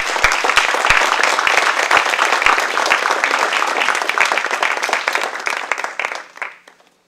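Audience applauding: dense, loud clapping from many hands that dies away about six and a half seconds in.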